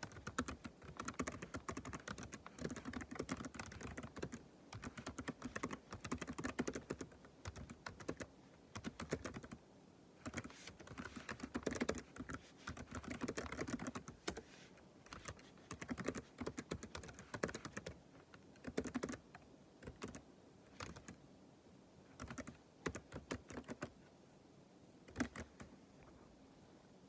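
Typing on a computer keyboard: quick runs of keystroke clicks broken by short pauses, thinning out toward the end with a last single keystroke near the end.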